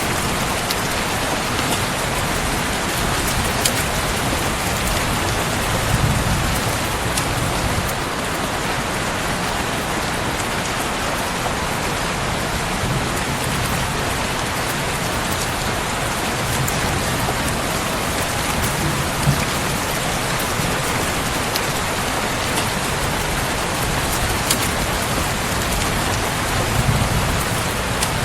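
Steady rain falling, with occasional sharp crackles from a wood fire. A few soft low swells rise under the rain.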